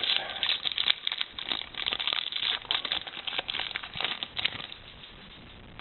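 Trading card pack wrapper crinkling and tearing as a pack of hockey cards is ripped open, in quick irregular rustles that die away near the end.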